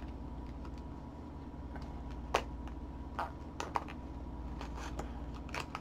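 A few scattered sharp clicks and taps of a small cardboard toy box being handled and opened by hand, over a steady low hum.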